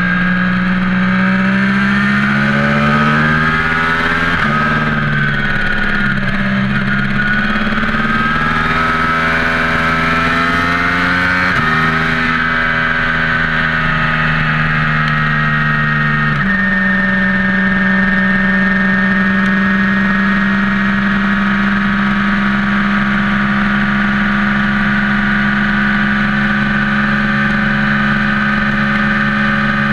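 Vehicle engine pulling through the gears: its pitch climbs, drops sharply about four and twelve seconds in as it shifts up, changes again near sixteen seconds, then holds steady at cruising speed. A high whine runs along with it.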